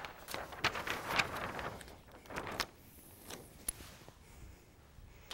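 Large flip-chart paper sheets rustling and crackling as a page is lifted and flipped over the top of the easel pad, with a few light knocks; the rustling dies down after about two and a half seconds.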